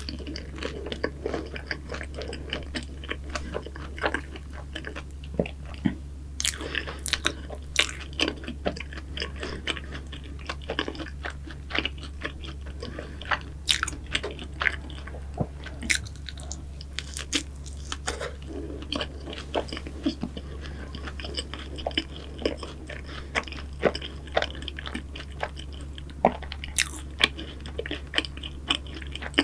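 Close-miked eating of pastries: bites and chewing with many crisp, irregular crunchy clicks, over a steady low hum.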